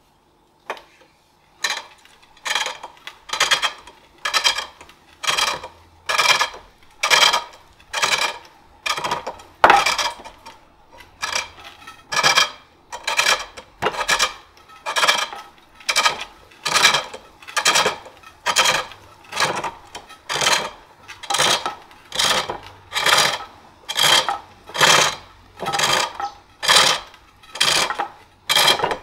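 Wooden bowl blank being turned on a foot-powered pole lathe: a gouge scrapes and cuts in short bursts with each treadle down-stroke, a little more than one a second, starting about a second and a half in. The cuts are a gentle roughing pass to knock the high spots off the blank.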